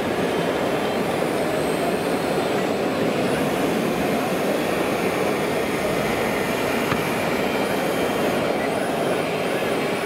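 Steady roar of background noise in a busy indoor exhibition hall, even and unchanging, with a few faint high whistling tones.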